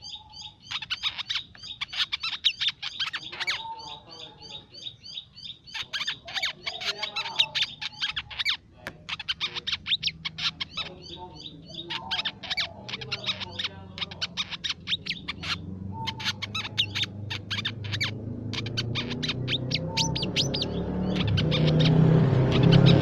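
Crimson sunbird calling: runs of rapid, sharp, high chirps separated by short pauses. A low drone builds up and grows louder over the last few seconds.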